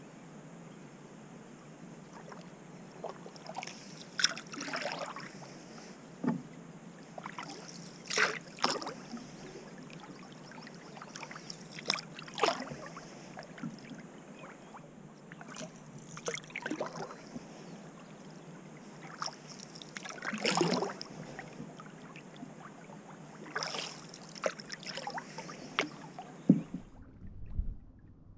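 Canoe paddle strokes in calm water: the blade's splash and swirl comes about every four seconds, with water trickling between strokes.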